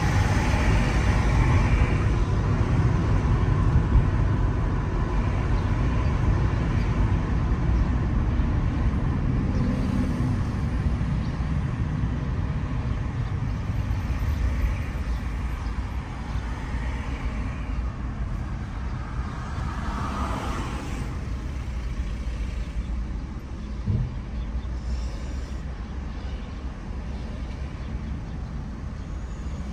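Car driving through city streets: steady road and engine noise. A brief swell of noise comes about twenty seconds in, and a short thump about four seconds later.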